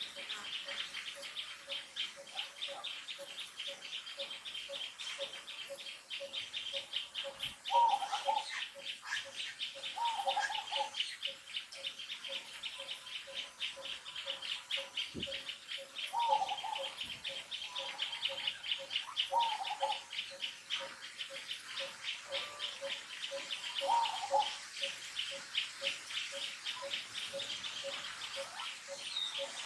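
Forest wildlife ambience: a high, fast, steady trill and a steady low pulsing call run throughout, and a short call comes five times, every few seconds.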